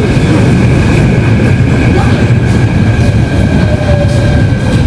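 Seoul Subway Line 7 electric train running past at close range: a loud, steady rumble of wheels on rail with two thin, steady high-pitched whines over it.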